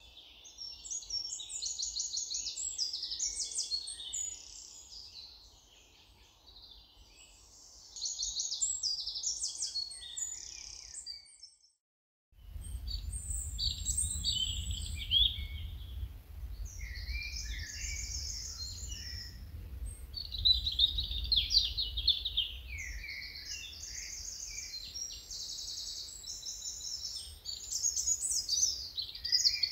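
Songbirds singing in phrases of rapid repeated high notes with short pauses between them. About twelve seconds in the sound cuts out briefly and resumes with a low rumble under the song.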